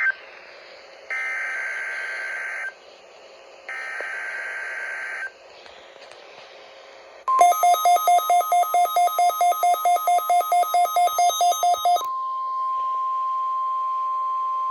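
NOAA Weather Radio test signal: bursts of screeching digital SAME header data, then rapid electronic beeping about four to five times a second, then a steady single-pitch warning alarm tone.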